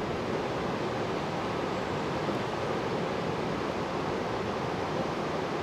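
Whitewater of Thunder Falls rushing steadily over rock ledges, an even, unbroken sound of falling water.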